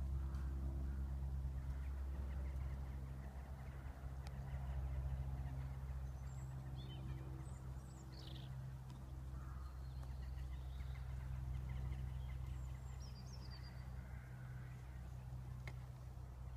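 A steady low hum with a few short high bird chirps over it, once in the middle and again a few seconds later.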